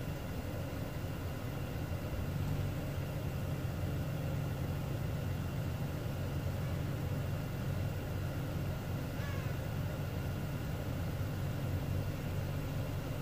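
A steady low engine hum, even throughout, like a vehicle idling.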